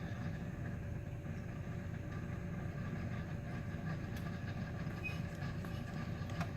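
Brew Express built-in coffee maker brewing: a steady low rumbling hum with faint steady tones over it, as it runs a vinegar-and-water cleaning solution through.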